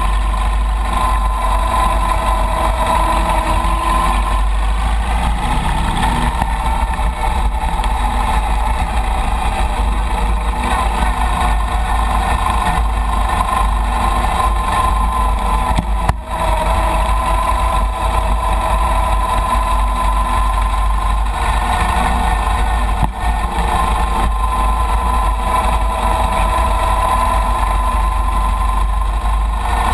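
Chang Jiang 750 side-valve flat-twin engine running steadily as the motorcycle rides at low speed over a dirt track, with two brief dips in the engine sound about halfway through and near the three-quarter mark.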